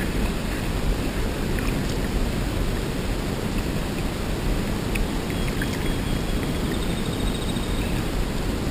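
Steady low noise of wind buffeting an action camera's microphone on a drifting kayak, with a few faint ticks.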